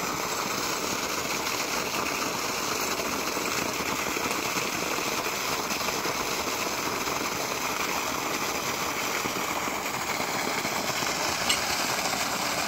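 Water jetting from a borehole pipe and splashing onto the ground in a steady rushing hiss, with an engine running underneath.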